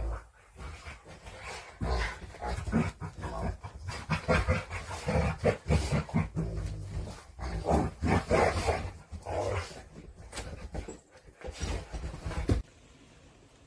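A dog vocalising in irregular, close bursts, cutting off abruptly near the end.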